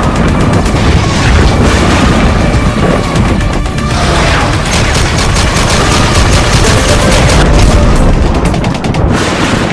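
Rapid machine-gun fire and booms as sound effects, layered over loud music, with the fire densest in the second half.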